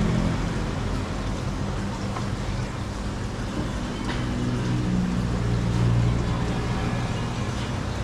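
A steady low mechanical hum, growing louder for a couple of seconds about five seconds in, over a background of general noise.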